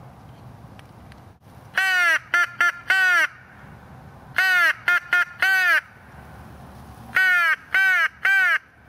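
Mouth-blown crow call sounding three loud series of harsh caws: four caws, then four more, then three, each caw bending up and down in pitch.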